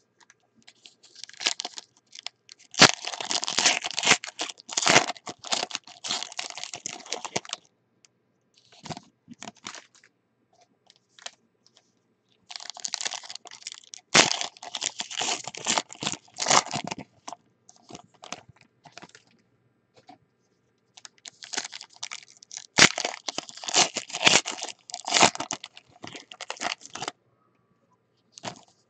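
Foil wrappers of 2018 Panini Select football card packs being torn open and crinkled in the hands. They crackle in three bursts with sharp snaps.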